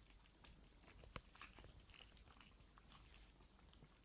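Two papillon puppies eating soft food from a glass bowl: faint, irregular wet smacking and chewing, with one sharper click about a second in.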